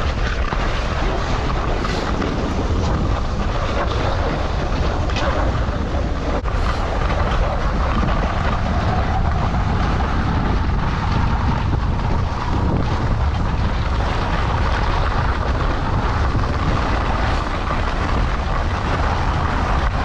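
Wind buffeting the camera microphone while skiing downhill, over a steady hiss of skis sliding on snow.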